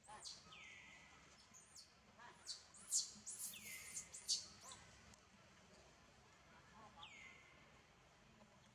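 Faint bird calls among the trees: calls that sweep down from a high pitch and level off, repeated about every three to four seconds, with a cluster of sharp high chirps around the middle.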